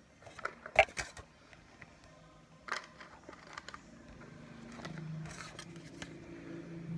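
Objects being handled at close range: a few sharp clicks and knocks, the loudest about a second in. A low steady hum grows in during the second half.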